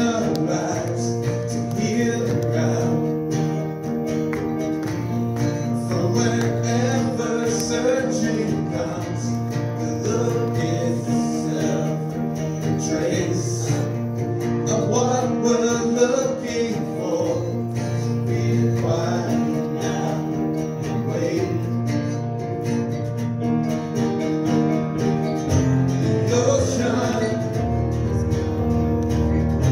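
Live worship song: a strummed acoustic guitar with men singing into microphones.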